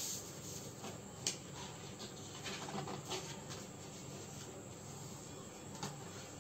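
Faint rustling and sliding of a sheet of paper on a tabletop as it is handled and folded, with a few light taps, the sharpest about a second in.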